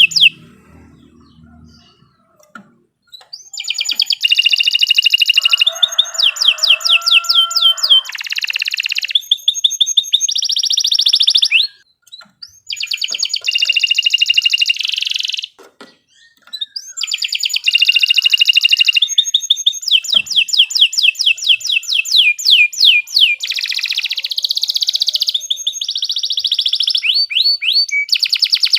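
Domestic canary singing long phrases of rapid trills and sharp high notes. The song starts about three seconds in and breaks off briefly twice, about twelve and sixteen seconds in.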